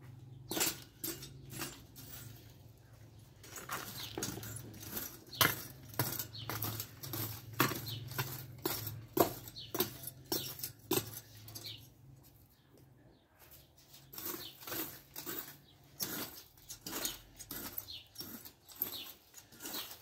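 A rake being dragged over dry bare earth in short, repeated scraping strokes, about one or two a second, with a brief pause about two-thirds of the way through.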